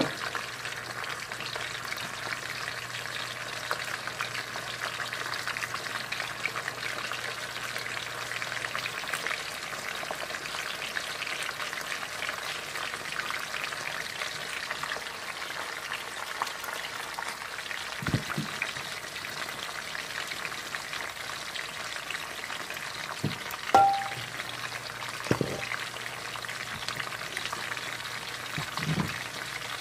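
Dried milkfish (daing na bangus) frying in hot oil in a pan: a steady, dense crackle and sizzle. A few brief knocks come in the second half, and a short ringing clink about three quarters of the way through is the loudest sound.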